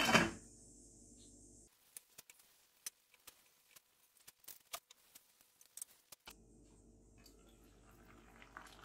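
Glass lid set down on a stainless-steel pan with a clatter at the start, then faint scattered ticks and pops from the covered curry pan, and a few light clinks near the end as the lid is lifted.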